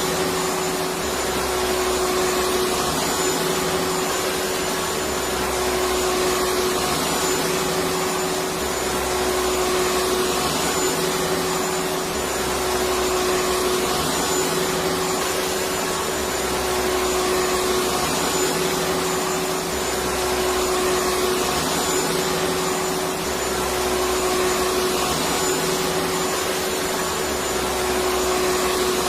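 Electric vacuum cleaner running continuously: a steady whooshing motor hum with one constant tone in it, rising and falling slightly every few seconds.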